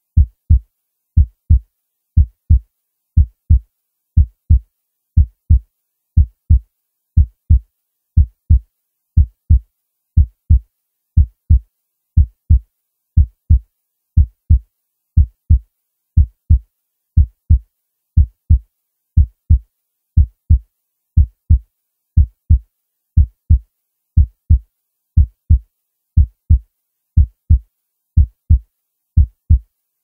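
Heartbeat sound: a steady, low double thump (lub-dub) repeating about once a second.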